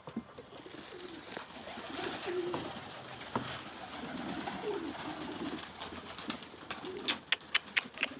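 Domestic pigeons cooing, a repeated low warbling coo. Near the end comes a quick run of five or six sharp clicks.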